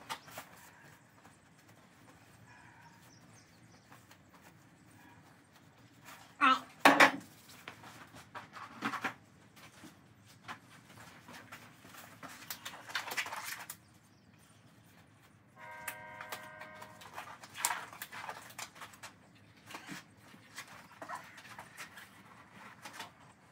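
Workshop handling noise: scattered knocks, clatter and rustling as tools and a plastic bucket are moved about, with two sharp knocks about seven seconds in. A steady hum with several tones runs for a few seconds past the middle.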